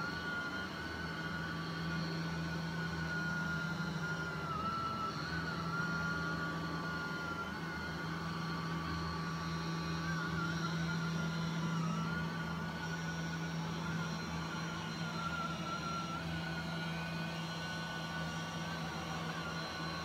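LG Hom-Bot Square robot vacuum running steadily on carpet: a low hum with a thin whine above it that wavers slightly in pitch.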